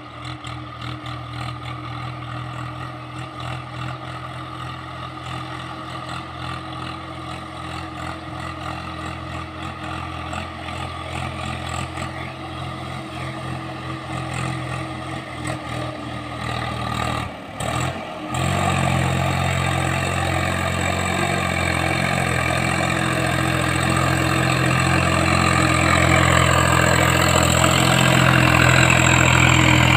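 Swaraj 744 XT tractor's three-cylinder diesel engine running under load as it pulls a fully loaded trolley, a steady drone that grows louder as the tractor approaches. The sound briefly cuts out a little past halfway, then comes back louder.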